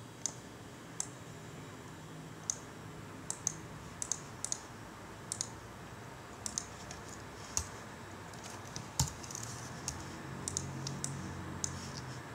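Irregular, scattered clicks of a computer mouse and keyboard as shapes are drawn with the pen tool and shortcuts are keyed.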